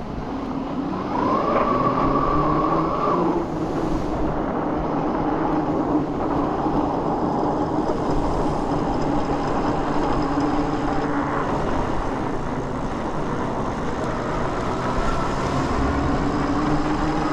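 Dual Bafang hub motors of a 72V fat-tire e-bike whining under power. The steady pitched whine climbs higher for about two seconds, a second in, then settles lower. It sits over a constant rush of wind and tyres on a wet, slushy road.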